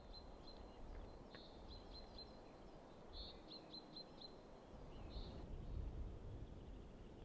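A small bird calling faintly in short, high chips, in quick runs of three or four, over a low background rumble. The chips stop a little after five seconds in.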